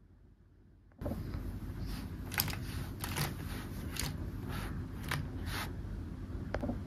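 Small plastic toy pieces clicking and tapping as they are set in place, a handful of sharp irregular clicks over a steady low rumble that comes in suddenly about a second in.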